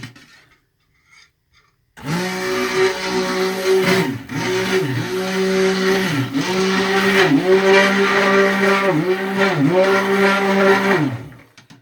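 Immersion stick blender mixing cold-process soap batter of oils and lye water toward trace. It starts about two seconds in, runs at a steady hum, dips briefly in pitch several times as the motor slows, and stops near the end.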